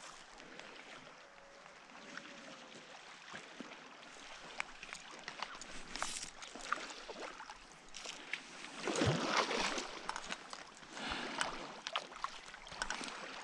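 A hooked silver (coho) salmon thrashing and splashing in shallow water at the riverbank, in several irregular bursts, the loudest about nine seconds in.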